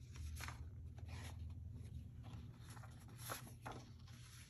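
Faint rustling of paper and cardstock being handled and slid across the work surface, in a few short brushes.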